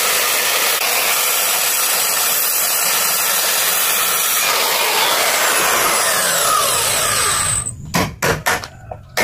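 A power tool running steadily on wood, then stopping, followed by a quick run of sharp knocks near the end.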